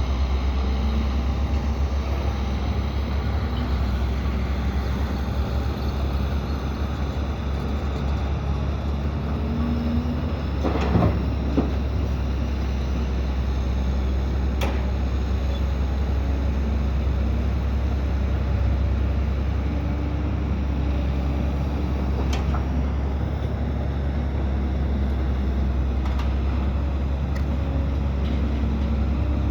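Heavy diesel earth-moving machinery, excavators and dump trucks, running steadily with a deep engine rumble. A pair of sharp metallic clanks comes about eleven seconds in, with single lighter knocks later.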